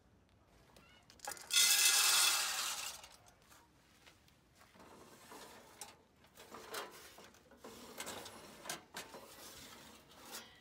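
Sheet-steel rocket stove's door and tray being opened and pulled out: a loud scrape of metal sliding on metal about a second and a half in, then a run of lighter scrapes and clicks.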